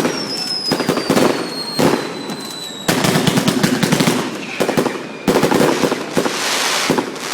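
Fireworks going off: dense, rapid crackling bangs of firecrackers, with a whistling firework gliding down in pitch for about three seconds at the start.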